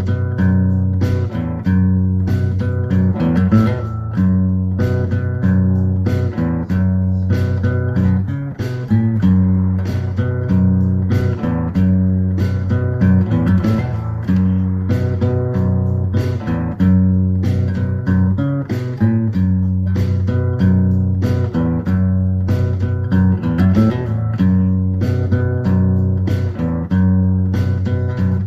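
Background music: guitar-led instrumental with a steady bass line and beat.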